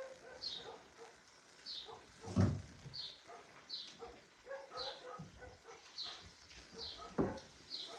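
Faint distant dogs barking, with a small bird chirping about once a second in short, high, falling chirps.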